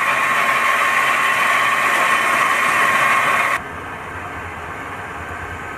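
Air injector and mixer running in a water tank: a loud, steady hiss of injected air and churning water. About three and a half seconds in it cuts off suddenly, leaving a quieter low hum.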